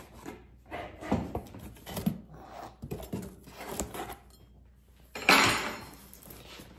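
Cardboard box being cut open with a table knife: short scrapes and rustles of the blade on tape and cardboard, then a louder tearing rasp about five seconds in as a flap is pulled free.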